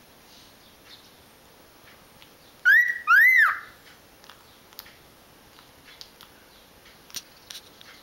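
Cockatiel giving two loud whistled calls close together about three seconds in, the first sliding up in pitch and the second rising then falling. A few faint clicks follow.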